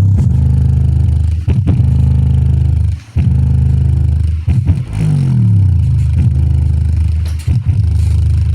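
Bass-heavy music played loud through a subwoofer: deep sustained bass notes with sliding downward pitch drops, cutting out briefly about three seconds in.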